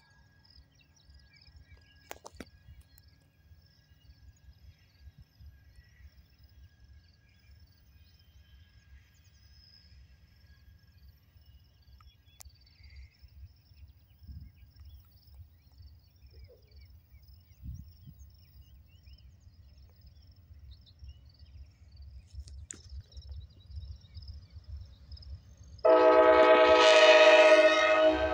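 Amtrak P42DC locomotive's horn sounding a loud, steady chord of several tones. It comes in suddenly about 26 seconds in after a long stretch of faint low rumble, and drops off at the very end.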